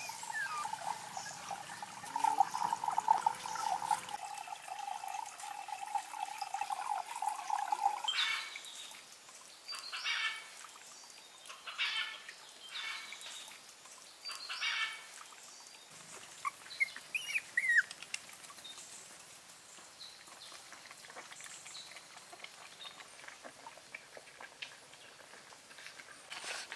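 Outdoor ambience: a steady high-pitched tone for the first eight seconds, then a run of about five short calls a second or two apart and a few quick chirps, typical of birds and insects in a garden.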